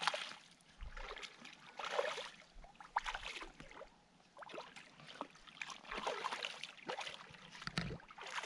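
A hooked fish thrashing at the surface in shallow water as it is reeled in, in several irregular bursts of splashing.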